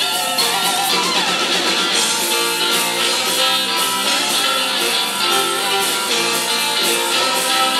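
Live blues band playing an instrumental break: an electric guitar solo with bent and sliding notes over the band's backing.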